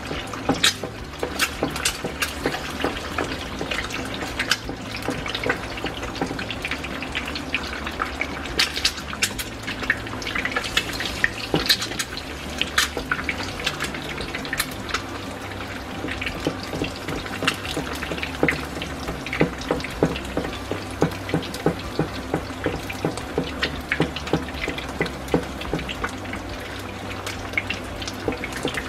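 An egg frying in hot oil in a small nonstick frying pan: a steady sizzle with frequent crackling pops from the spitting oil.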